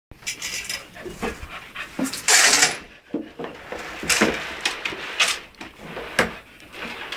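Labrador retriever puppy panting and breathing noisily as it moves about, a string of short breathy bursts at irregular intervals, with a louder rush of noise about two seconds in.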